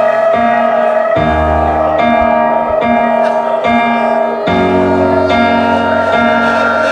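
Live industrial electronic music in an instrumental passage: held chords over a low bass that changes note about a second in and again near the middle, with a short higher note recurring throughout.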